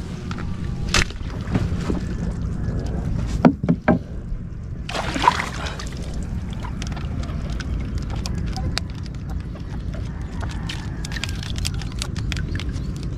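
Small boat on the water: a steady low rumble with scattered knocks, and a brief rush of water noise about five seconds in, as crab traps are handled over the side.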